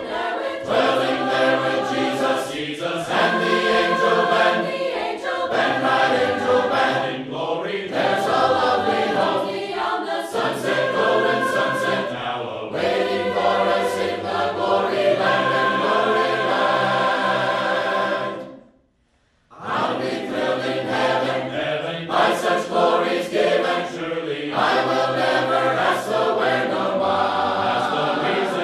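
Choir singing a cappella, many voices together. About two-thirds of the way through there is a sudden gap of about a second of silence, then the singing resumes.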